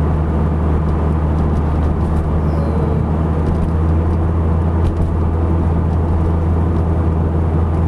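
Car engine and tyre noise heard from inside the cabin while driving at a steady speed: a steady low engine drone under an even road rumble.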